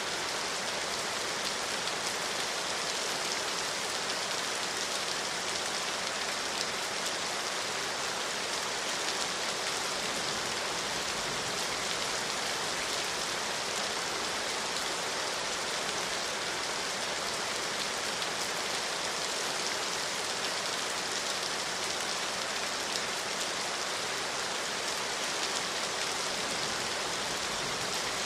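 Steady rain falling, an even, unbroken hiss of drops with no thunder.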